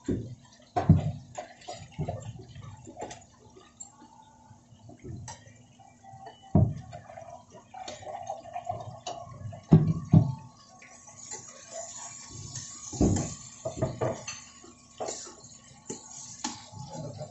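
Metal tongs clacking and scraping against a nonstick frying pan as pieces of frying pork are turned and lifted out, in irregular knocks, over a light sizzle of hot oil.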